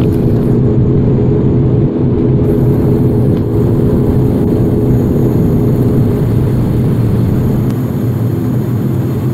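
ATR 72-500's turboprop engine and propeller running with a steady low drone, heard from inside the cabin next to the propeller while the aircraft rolls along the runway.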